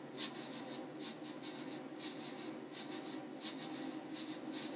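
Mini metal lathe running with its tool bit cutting a brass bar: a steady motor hum under an uneven scraping from the cut.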